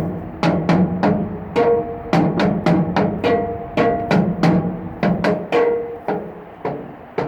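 Two wooden sticks drumming on a bridge's metal parts: a steady rhythmic run of sharp strikes, about three or four a second, each leaving a short metallic ring at a few different pitches.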